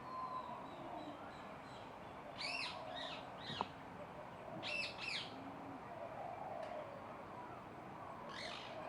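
Birds calling: short, high, arched calls, a run of four about two and a half seconds in, a pair near five seconds, and another near the end, over a steady background hum.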